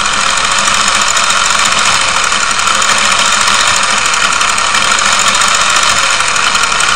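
Toy RC car's small electric drive motor and gears running steadily, a continuous whirring whine, driven under PWM control from the handheld.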